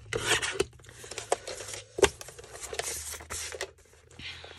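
Paper being handled and worked: bursts of rustling and scraping, with a sharp click about two seconds in.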